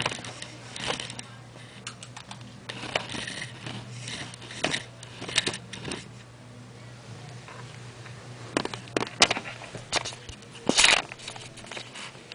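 Irregular short scuffs, taps and rustles from a Himalayan kitten scrambling and pouncing on a vinyl floor, in bunches with pauses between, over a steady low hum.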